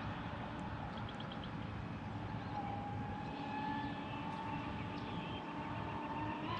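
Brushless electric motor whine of an RC catamaran on an 8S battery running on the water, its pitch dipping slightly partway through and rising again near the end as the throttle opens.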